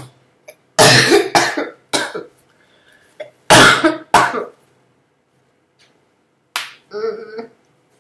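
A woman coughing hard in bouts: a loud fit about a second in, another about three and a half seconds in, and a shorter cough or throat clearing near the end. She has been sick with this cough for about ten days.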